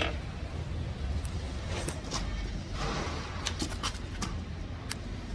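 Scattered light metallic clicks and taps as engine parts are handled while a connecting rod is fitted to its piston, over a steady low hum.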